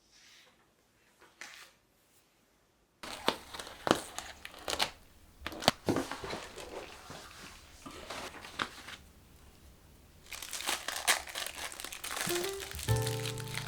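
Crinkling and crumpling of a thin crackly material being handled, with many sharp crackles, starting about three seconds in. Background music with clear pitched notes comes in near the end.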